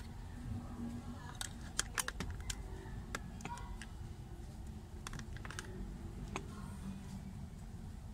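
Scattered light plastic clicks and taps as an FM transmitter charger is handled and pushed into a car's cigarette lighter socket, in two short clusters over a steady low hum.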